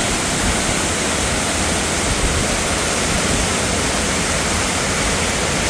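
Waterfall running steadily, a loud, even rush of falling water swollen with rainy-season flow.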